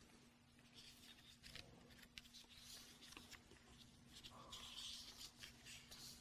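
Near silence: faint rustling of paper sheets being handled at a lectern, with a few small clicks and a faint steady hum underneath.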